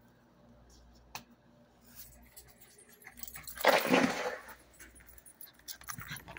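A dog barks once, loudly, a little over halfway through, with a few faint clicks and knocks before and after.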